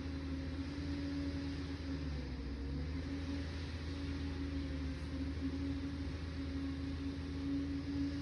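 Liebherr 746 crawler dozer's diesel engine running steadily, with a constant hum and no break.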